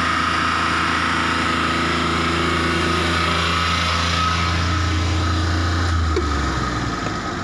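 Old mini truck's petrol engine idling steadily, with a thin high whine over the low hum. About six seconds in its note drops lower and a little quieter. It is an engine that burns oil and smokes, running with an engine-lube additive in it.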